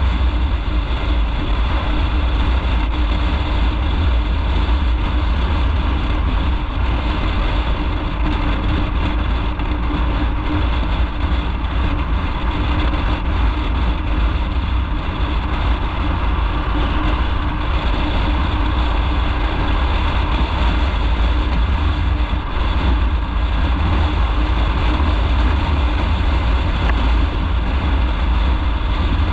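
Motorcycle on the move: a steady engine and road noise with a heavy low rumble.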